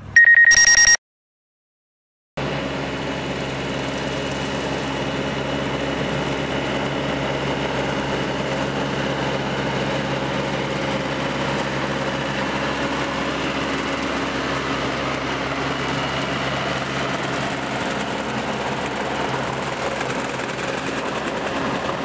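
A steady high electronic beep tone lasts under a second, then cuts off to silence. From a little over two seconds in, a Branson 7845C tractor's diesel engine runs steadily under load, driving a Bush Hog rotary cutter that is mowing grass.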